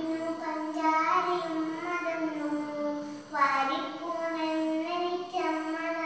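A young girl singing a song alone, without accompaniment, holding long notes.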